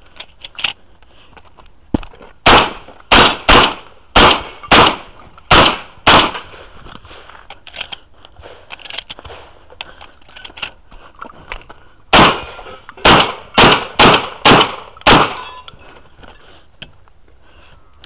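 Shotgun fired in two quick strings: about seven shots roughly half a second apart, a pause of about six seconds with only small handling clicks, then six more shots.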